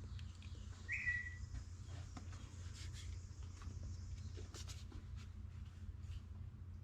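Faint scattered clicks and light knocks of things being handled over a steady low hum, with one short, high chirp or squeak about a second in.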